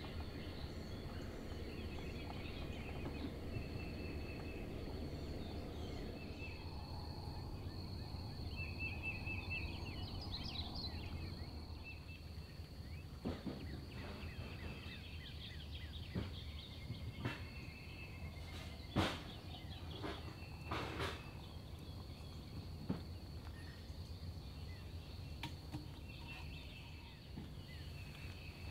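Open-air campsite ambience: a steady low rumble with a thin high steady tone, and short chirping bird calls scattered through. From about halfway on, several sharp clicks or knocks.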